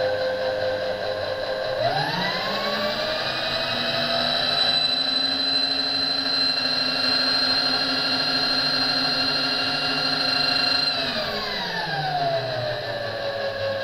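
Small electric motor running with a steady whine that speeds up sharply about two seconds in to a much higher whine, holds there, then winds back down to its first pitch over the last few seconds.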